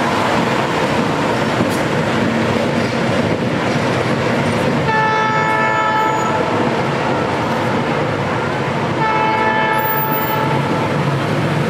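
Diesel locomotive running close by, its engine and wheels on the rails making a steady rumble, then two blasts of its multi-tone air horn, about five seconds in and again about nine seconds in, each lasting around a second and a half.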